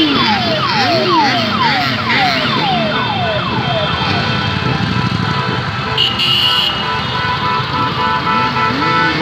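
Siren sounds over passing traffic: a slow rising-and-falling wail and a quick run of falling chirps, about two a second, during the first four seconds. Then several car horns are held on steady notes from about six seconds in, as the convoy of cars and motorcycles rolls past.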